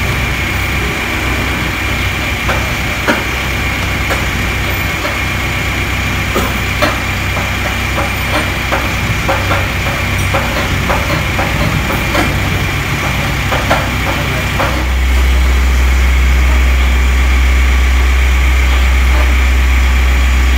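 A steady low machine drone, like an engine idling, with scattered light clicks and knocks over it. About fifteen seconds in, the drone suddenly gets louder and heavier.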